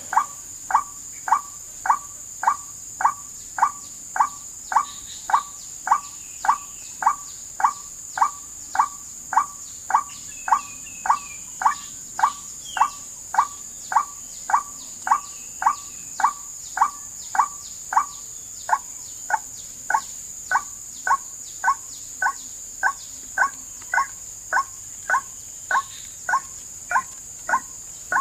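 Recorded lure call of the white-breasted waterhen played on a loop: a short 'wak' note repeated at a very even rate of about twice a second. A steady high insect drone sounds behind it.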